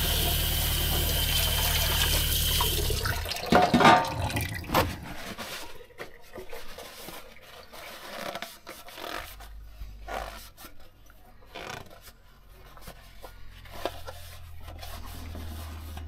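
Faucet water running into a stainless-steel food container in a sink, with a low hum under it, shut off about three seconds in. A brief splash and clatter of the metal tub follow, then a sponge scrubbing and wiping inside the tub.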